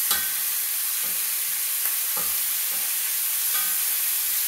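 Chicken tenders sizzling steadily in a hot stainless-steel skillet, with metal tongs clicking and knocking against the pan several times as the pieces are turned over.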